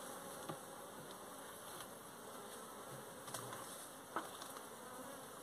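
Honeybees buzzing faintly around a hive being closed, with a few light clicks and knocks as the wooden lid is settled.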